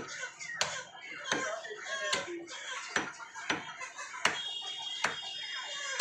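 Meat cleaver chopping raw chicken on a wooden log chopping block: about eight hard, unevenly spaced chops in six seconds, with voices talking behind.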